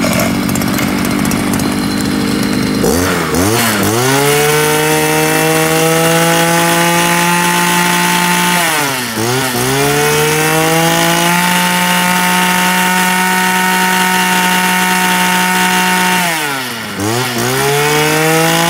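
43cc two-stroke brush cutter engine idling for about three seconds, then revved up and held at high speed, the throttle let off and reopened twice (about nine and seventeen seconds in). A test run of the used machine.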